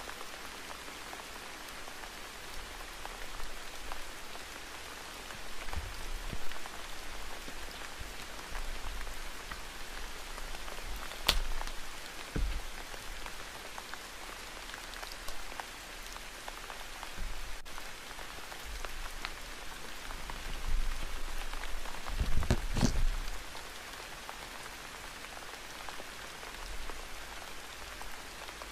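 Steady rain pattering, with a few sharp clicks and soft low thumps from paper being handled. The loudest is a cluster of thumps about three quarters of the way through.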